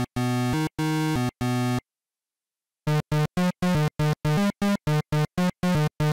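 Background music: a synthesizer tune in a video-game style, with a few held notes, a pause of about a second, then a quick run of short, separated notes.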